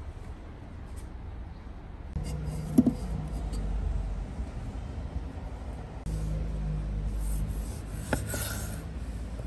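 Kitchen knife cutting through a tomato on a wooden cutting board near the end: a sharp tap as the blade meets the board, then a short rasping slice. About three seconds in there is a single loud knock, over a low steady rumble.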